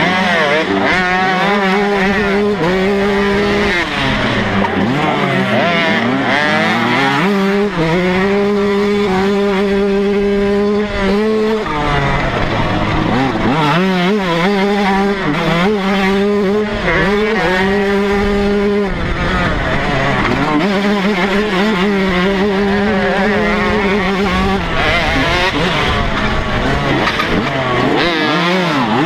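TM125 two-stroke single-cylinder motocross engine racing flat out, heard from on board. Its pitch climbs, holds steady at high revs for a few seconds, then drops away as the throttle is shut, several times over.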